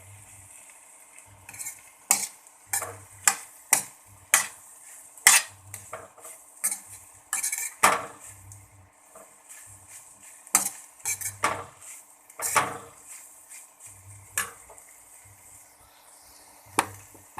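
A cooking spoon stirring cooked green beans and masala in a pan, scraping and knocking against the pan in irregular strokes, about one or two a second.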